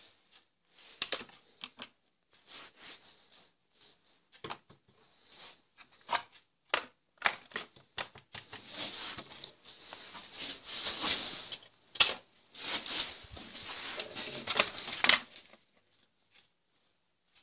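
Irregular clicks and taps of objects handled on a cluttered workbench, turning about halfway through into a denser scraping and rustling with sharp clicks that stops a couple of seconds before the end.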